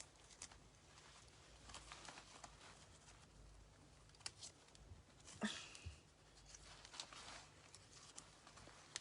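Near silence with faint, scattered rustles and soft clicks of hands handling a plastic hair-curler attachment and its clip while trying to fasten it.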